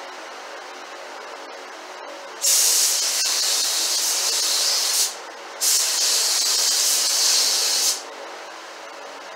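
Compressed-air paint spray gun spraying paint in two bursts of hiss, each about two and a half seconds long, with a short break between them. Each burst starts and stops sharply.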